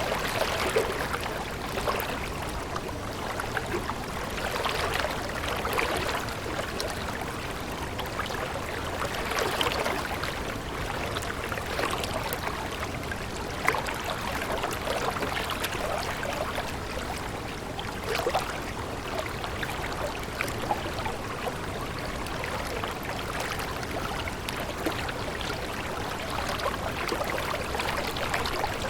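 Running water of a small stream, trickling and gurgling steadily.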